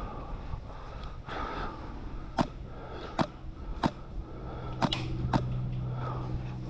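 Five sharp airsoft gun shots at uneven intervals. About halfway through, the steady drone of a Spitfire's piston engine flying over comes up under them.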